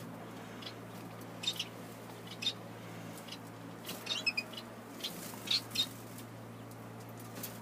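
Small aviary finches chirping: scattered short, high calls, with a quick run of notes about four seconds in and two louder chirps soon after, over a steady low hum.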